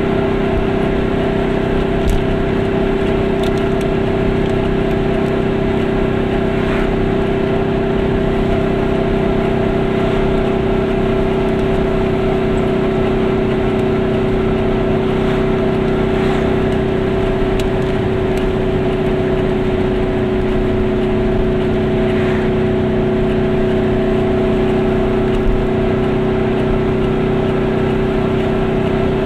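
Goggomobil's air-cooled two-stroke twin engine running at a steady cruising pitch, heard from inside the small car along with road noise. Two brief knocks stand out, about two seconds in and near the end.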